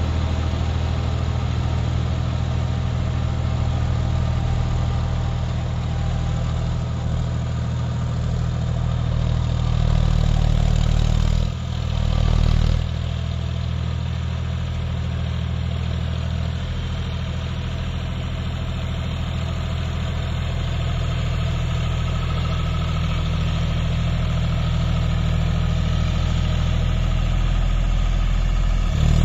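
John Deere 5050D tractor's three-cylinder diesel engine running steadily while it drives a rotavator through the soil, a low, even hum that swells briefly about ten seconds in.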